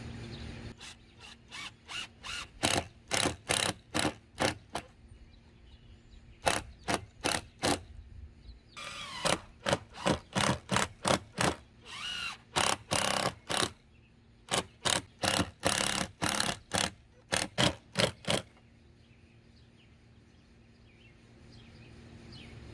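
Cordless drill/driver run in short trigger pulses, driving screws to fasten a mounting bracket: dozens of brief whirs in quick runs with short pauses, stopping about 18 seconds in.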